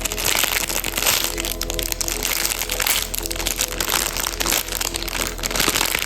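Background music with crinkling, crunching noises over it, typical of soft squishy toys and their plastic wrappers being squeezed and handled.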